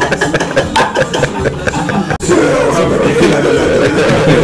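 Men chuckling and laughing in quick repeated bursts, cut off by a sudden brief dropout about two seconds in, then a man's voice.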